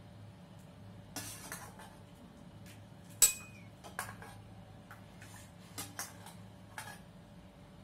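Steel kitchenware clinking now and then as a wire-mesh skimmer is handled against steel pots and a bowl. The sharpest clink, about three seconds in, rings briefly. A low steady hum runs underneath.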